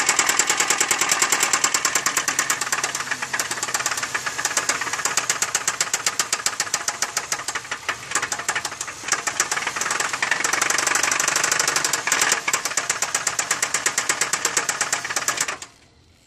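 A 2003 Chevy Malibu's 3.1-litre 3100 V6 is running with a loud, rapid, regular knocking from inside the engine, which the owner calls a horrible, pretty bad noise. The sound cuts off suddenly near the end.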